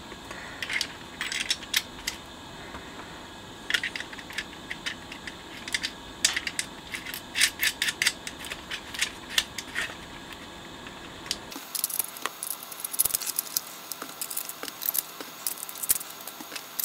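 Irregular small metallic clicks and clinks of a stereogram's amplifier chassis being handled and fitted back into its front plate, with parts on the control shafts being worked by hand.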